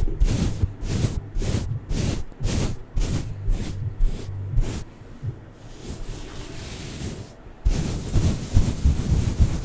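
Tape on a microphone being worked fast and aggressively, close to the mic: quick rough strokes about two a second, a quieter stretch past the middle, then a denser flurry of strokes in the last two seconds.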